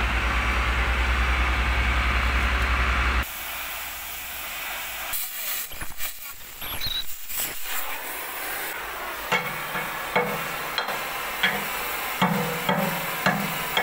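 A steady low machine hum with a fast even pulse, which cuts off about three seconds in. Then an oxy-acetylene cutting torch hisses as it cuts through a steel excavator bucket, with scattered sharp metal clicks and knocks.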